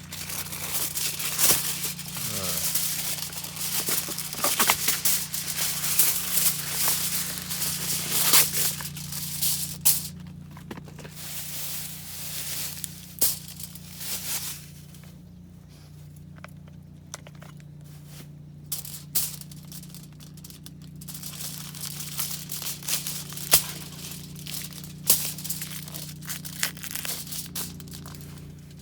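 Crinkling and rustling of wrapping being handled, with scattered sharp clicks, over a steady low hum.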